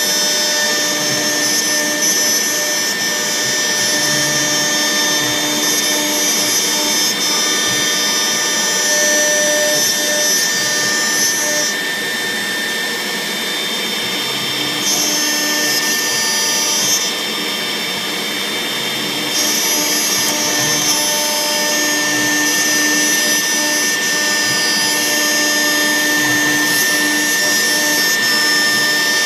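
CNC router spindle with a 4 mm Polishcut cutter milling 10 mm polycarbonate sheet: a steady machine whine with high-pitched cutting noise. The high cutting noise drops away twice midway, then returns.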